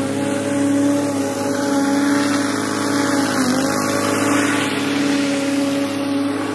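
Toro TurfMaster walk-behind mower's engine running steadily while cutting grass, with a brief dip in pitch a little past halfway.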